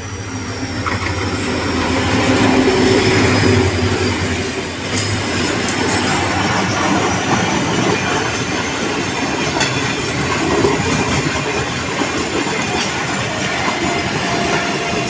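Green Line Express passenger train passing close by at high speed. The diesel locomotive grows louder over the first few seconds as it comes level, then the coaches rush past with a steady rumble and clattering wheels.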